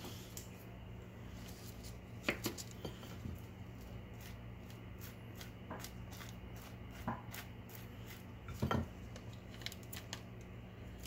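Table knife spreading butter on slices of bread, scraping softly, with a few soft knocks, the clearest a little before the end. A faint steady hum runs underneath.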